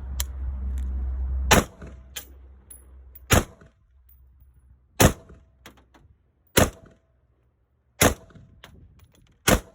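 Six unsuppressed shots from an 11.5-inch 5.56 rifle with an A2 flash hider, fired at an even pace about a second and a half apart. A steady low rumble runs under the start and stops at the first shot, and faint ticks sound between the shots.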